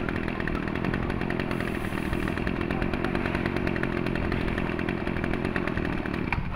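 Mitsubishi TBE27 27cc two-stroke brush cutter engine running steadily at speed, then dropping off near the end.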